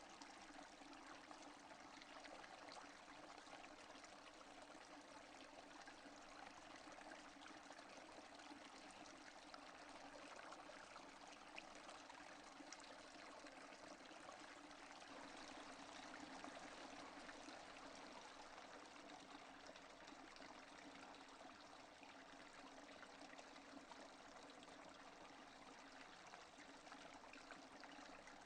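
Faint, steady rain with a dense patter of fine drops and no thunder.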